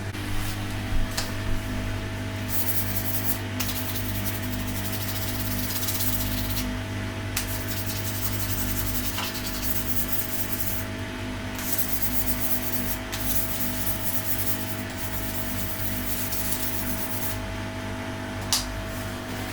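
Acetone-soaked tissue rubbed hard over a spring-steel 3D-printer build plate to scrub off leftover PEI sheet adhesive, in long scrubbing passes with short pauses between them. A steady low hum runs underneath, and a few light clicks come near the start and near the end.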